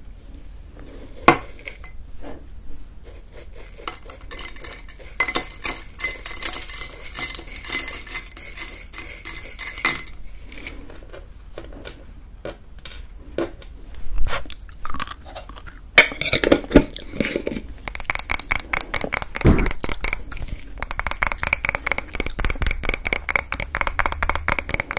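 Glass jar of homemade granola tapped close to the microphones: long runs of rapid, even glassy clicks with the jar ringing. One run falls in the first half and another runs from a little past the middle onward, with scattered single knocks and clinks between.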